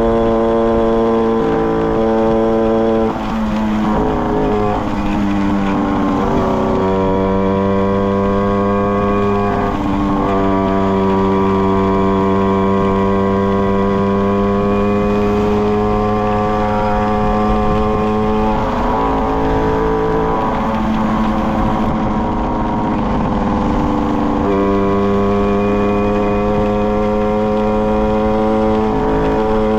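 Tomos XL 45 moped's small two-stroke single-cylinder engine with a Tecno Bullet exhaust, running while riding. It holds a steady note, with its pitch stepping down and back up abruptly several times.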